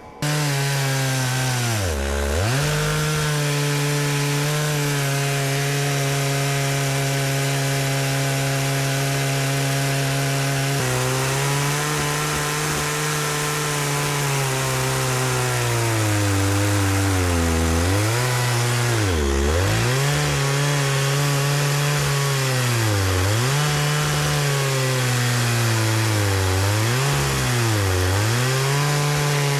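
Chainsaw on an Alaskan chainsaw mill running at full throttle while ripping a pecan log into slabs. Its engine note sags and recovers several times as the chain loads up in the cut, more often in the second half.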